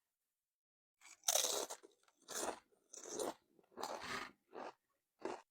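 Close-miked crunching and chewing of Tostilocos, tortilla chips with toppings: a run of crisp crunches roughly once a second, starting about a second in.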